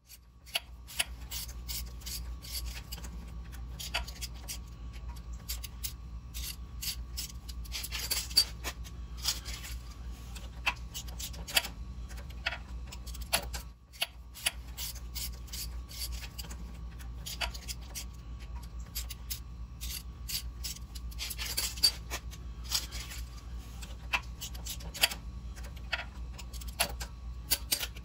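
Scattered metallic clicks and clinks of hand tools and parts while a truck's front wheel and brake hardware are taken off, over a steady low hum.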